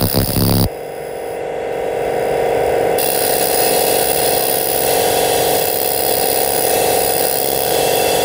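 Handheld fiber laser cleaning system running over a steel bar: a steady whir, likely from the machine and its fume-extraction hose, with a high hiss on top. A short loud buzz opens it, and the hiss drops out for about two seconds just after the start, then comes back.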